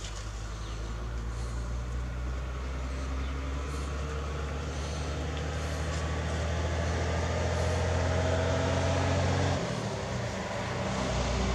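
A motor engine runs with a steady low drone that slowly grows louder, with a faint rising whine in the middle. The low drone cuts out abruptly about nine and a half seconds in and comes back near the end.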